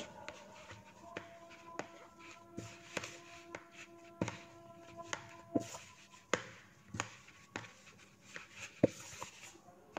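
A bare hand kneading and squeezing hot cooked dough into tapioca starch in a plastic bowl: soft, irregular pats and clicks of fingers on the dough and the bowl.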